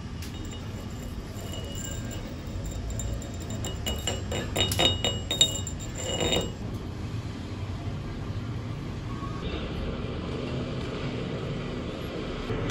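Chipping hammer knocking slag off a fresh arc-weld bead on a steel block: a quick cluster of sharp metallic clinks with a short ring, about four to six seconds in, over a steady low hum.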